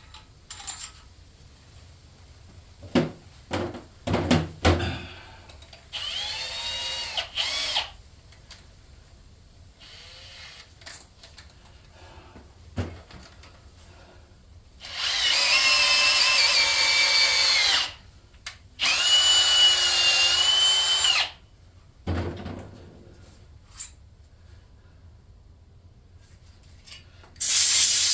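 Power drill run in four short bursts of a few seconds each, its motor whine steady while running, with clicks and knocks of handling between the runs. It is turning the tap or drill bit into a stripped head bolt hole in a Chevy LS V8 aluminium block for a Time-sert thread insert.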